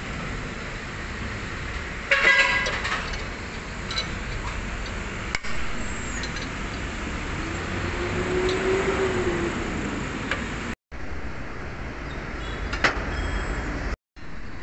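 Steady workshop background noise with a short, loud ringing sound about two seconds in and a few sharp clicks. The sound drops out briefly twice near the end.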